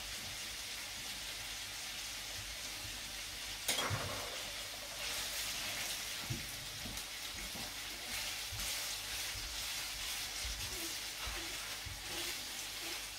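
Beetroot strips sizzling in oil in a frying pan while a wooden spoon stirs them, knocking lightly against the pan. A single sharper knock comes about four seconds in.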